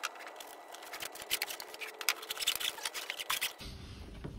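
Thick power cable being uncoiled and handled: a dense run of irregular rustles and light clicks as the cable jacket rubs and knocks.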